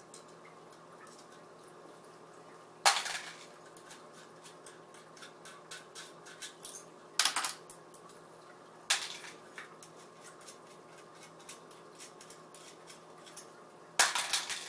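Small metal clinks and light rattling of the jack nuts and washers being unscrewed by hand from a guitar pedal and set down, with four sharper clinks spread through, the last near the end.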